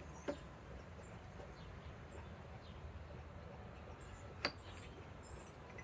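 Quiet outdoor background with two sharp clicks, about four seconds apart, the second the louder, and a faint bird chirp near the end.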